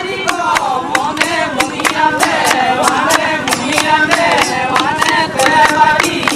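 Several voices singing a folk song together over a steady drum beat of about four strokes a second.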